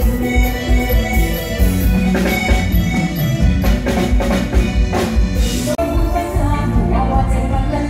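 Live band music over a stage sound system, with a steady drum-kit beat and percussion; the sound drops out for an instant about six seconds in.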